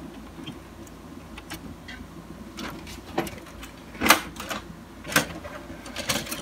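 Scattered plastic and metal clicks, scrapes and knocks of a Canon MF643 colour laser printer's transfer belt unit being worked loose and slid out of the printer by hand. A few sharper knocks come in the second half, the loudest about four seconds in.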